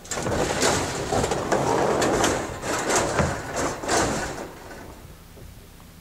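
Welded-wire livestock hauler panels scraping and rattling as the cage is slid over the tailgate into a pickup bed, with many quick clanks; the scraping dies down after about four and a half seconds.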